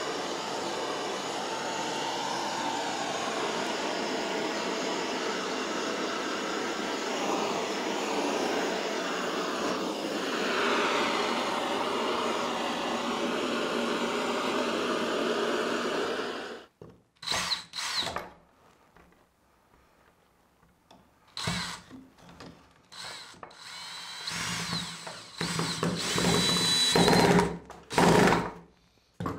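A steady rushing noise stops abruptly about halfway through. It is followed by a cordless drill-driver working on a wooden door, running in several short, loud bursts with gaps between.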